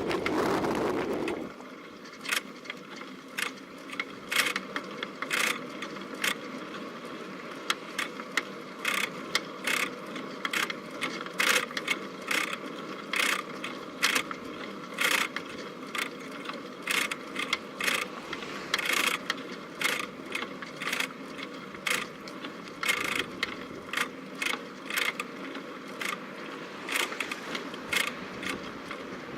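Bicycle ride heard through a bike-mounted camera: a steady low rumble of tyres and wind, with sharp, irregular clicks and knocks from the bike's parts rattling, about one or two a second. A louder rush of noise in the first second or so.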